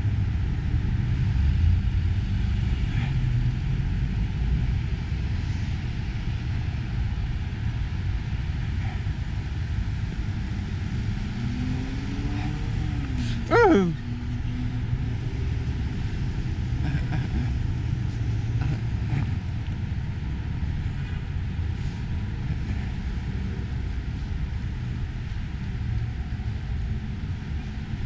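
Street traffic: cars passing with a steady low rumble. About halfway through, one short, loud sound drops sharply in pitch.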